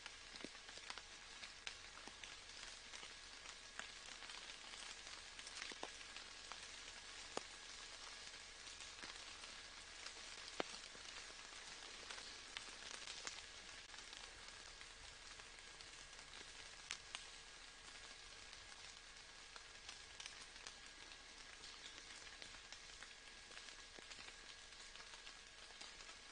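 Faint, steady rain: a soft even hiss with scattered individual drops ticking through it.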